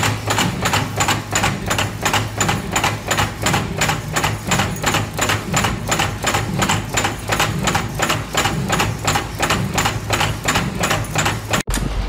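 Mechanical power press stamping metal parts at a fast, steady pace: a sharp clack about three times a second over the steady hum of the press's motor and flywheel.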